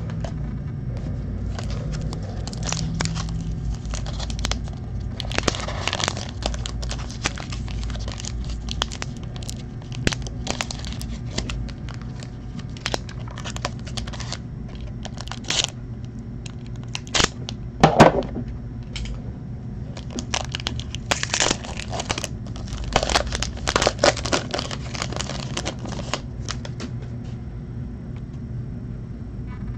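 Foil trading-card pack wrapper crinkling and tearing as it is opened, with the rustle and clicks of cards being handled.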